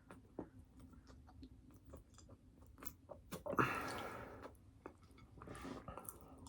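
Close-miked chewing and biting of a hamburger and fries, with wet mouth clicks and a louder burst of noisy sound about three and a half seconds in.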